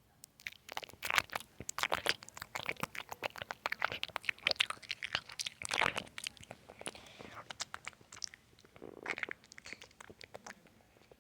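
Close-miked gum chewing with wet mouth sounds: rapid sticky clicks and smacks that start about half a second in, come thick for several seconds, and thin out near the end.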